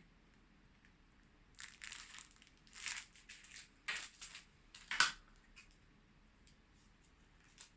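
Plastic packaging crinkling and rustling in bursts for a few seconds, with a couple of sharp clicks about four and five seconds in, as small camera accessories are handled.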